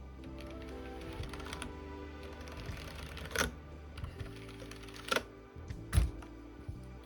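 Typing on an IQUNIX F97 mechanical keyboard with Cherry MX Red switches, a run of light key clicks with a few louder clacks in the middle and near the end, over background music.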